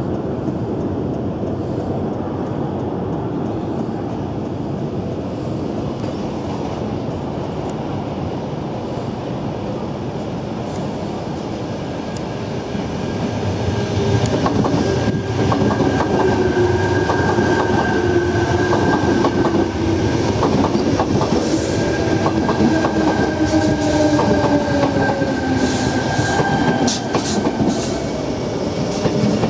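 Sydney Trains Tangara (T set) electric train approaching and passing close by. A steady rumble grows louder about 13 seconds in. Whining tones then join it, some falling slowly in pitch, along with a steady high tone and wheels clicking over rail joints.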